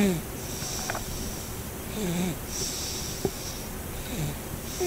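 A sleeping infant snoring and wheezing. A breathy hiss alternates with a short squeaky, wavering note, one breath about every two seconds, with a single brief click about three seconds in.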